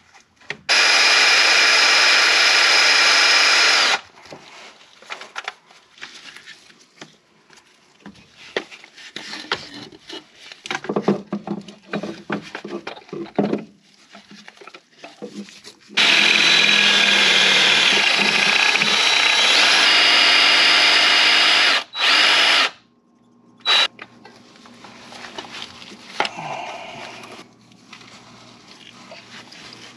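Power drill boring out a broken exhaust manifold stud: two steady runs, one of about three seconds near the start and a longer one of about six seconds past the middle, followed by two short bursts. Between the runs come scattered metallic clicks and knocks of tool handling.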